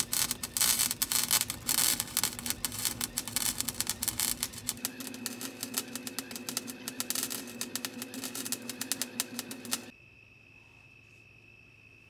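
MIG welder arc crackling steadily as it welds a steel exhaust pipe, then stopping suddenly about ten seconds in.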